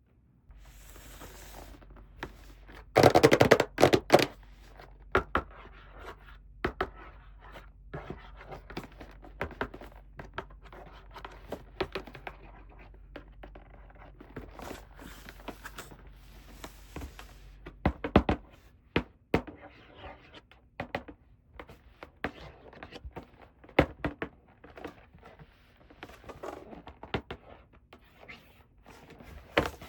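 Hands unboxing toys: scratching, scraping and tearing of packaging with small knocks of toy pieces, loudest in a dense burst of rustling about three seconds in. A faint low hum runs under the first half.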